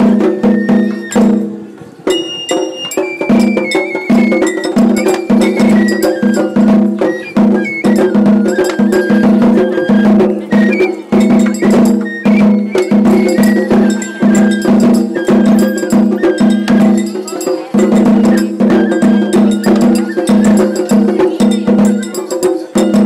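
Japanese festival hayashi music for a lion dance: a barrel taiko drum beaten a few times a second, with a high bamboo flute melody stepping down in pitch and sharp metallic clanging hits.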